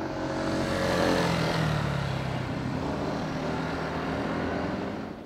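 A motor vehicle passing close by on a city street, its engine note sinking in pitch as it goes past, over a steady wash of traffic noise.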